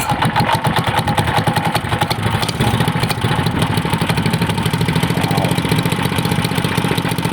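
Single-cylinder 212cc engine of a CT100U mini bike, rebuilt with a billet connecting rod and flat-top piston, idling steadily with a fast, even firing pulse.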